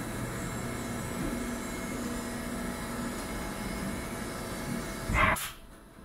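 Haas VF-4 CNC vertical mill running, its spindle turning an end mill that cuts a white plastic workpiece held in the fourth-axis rotary chuck: a steady machine hum with a wavering cutting tone. About five seconds in comes a brief loud burst rising in pitch, and then the machine noise drops off sharply.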